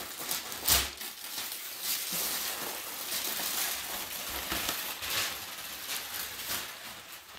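Wrapping paper tearing and crumpling as a large gift box is unwrapped, with one loud sharp rip or knock about a second in.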